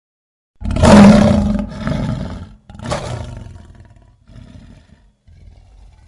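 Lion roar sound effect: one loud roar about half a second in, a second, shorter roar near the three-second mark, then a string of quieter, shorter calls that fade away.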